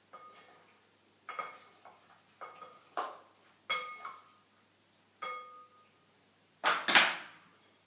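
Utensil clinking and tapping against dishware about eight times, each clink leaving a short ringing tone at the same pitch, while dressing is spooned over the food. Near the end comes one louder, longer scraping sound.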